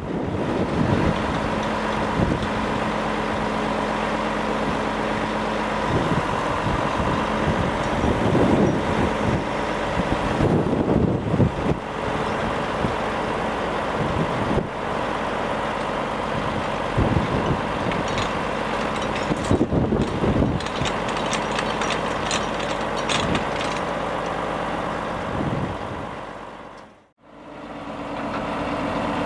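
Volvo crane truck's diesel engine running steadily, swelling louder at times, with light metallic clinks from the crane's chains and steel lifting beam about two-thirds of the way through.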